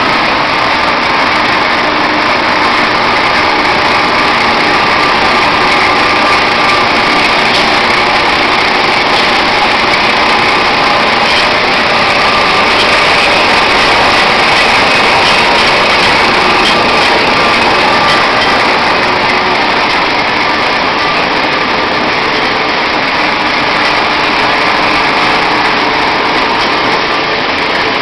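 Peanut wet-peeling machine running steadily, its motor, belt drive and peeling rollers making a constant, even mechanical noise as peanuts are fed through.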